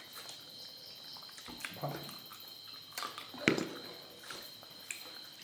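Close-up eating sounds of fish curry soup and rice: wet slurps and small mouth and utensil clicks, the loudest about three and a half seconds in. A steady cricket trill runs underneath.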